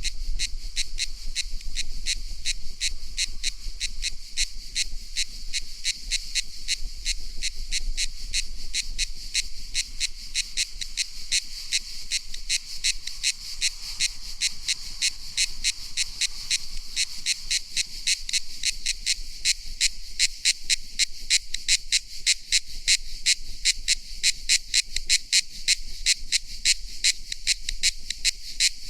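Cicada calling: a high-pitched, buzzy song made of a fast, even train of pulses, steady throughout, with the pulses growing sharper and more distinct in the second half.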